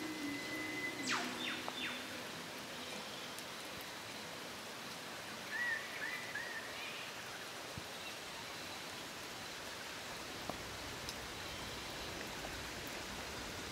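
Steady, soft rain-like hiss of wet forest ambience. About a second in, a bird gives a long held whistle that ends in a sharp downward sweep, answered at once by two shorter falling notes; a few brief chirps come near the middle.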